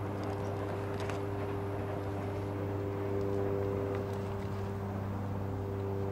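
A steady low hum of several constant tones that does not rise or fall, over a light background hiss.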